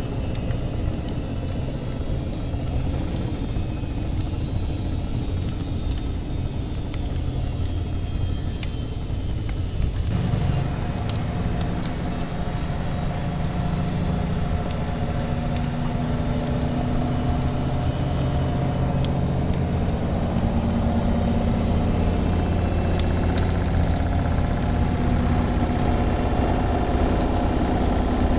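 Washing machine running with a steady low rumble and motor hum, which gets fuller and slightly louder about ten seconds in. Light crackling of a wood fire runs over it.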